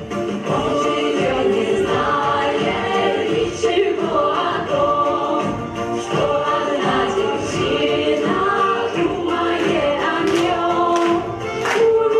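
Several voices singing a song together in chorus, with musical accompaniment.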